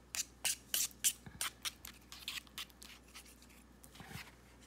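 A plastic fork stirring grits on a plate, in quick scraping strokes about three a second that grow fainter toward the end.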